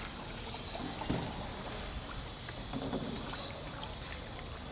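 Kayak paddles dipping and water lapping around a plastic kayak, with a few soft splashes over a steady hiss.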